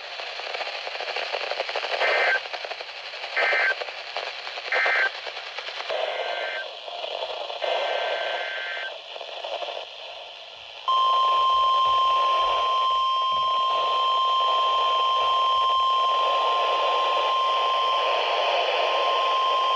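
Emergency Alert System broadcast over weather radio: three short bursts of screechy SAME header data tones about a second and a half apart, then radio hiss, then about 11 s in the steady NOAA Weather Radio 1050 Hz warning alarm tone starts and holds as one unbroken beep. The data bursts and alarm tone mark the start of a new warning message.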